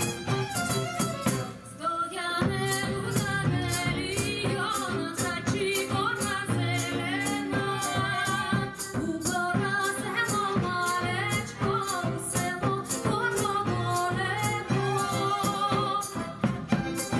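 Live Macedonian folk song: a woman's voice singing with vibrato over violin, flute, acoustic guitar and a frame drum keeping a steady beat. The singing comes in about two seconds in, after a short instrumental lead-in.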